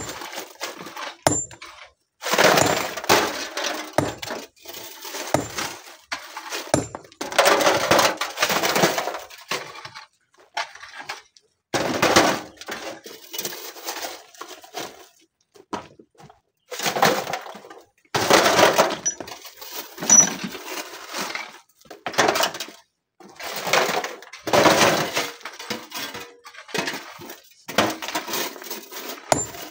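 Broken stones clattering as they are tossed into wheelbarrows and onto the rock pile, in irregular bursts a few seconds apart, with a few short sharp knocks between them.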